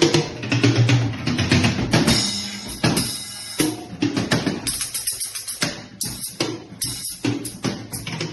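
Drum kit being played freely, with bass drum and snare strokes. Cymbal washes ring out about two to three and a half seconds in, and the strokes become sparser and more spaced after that.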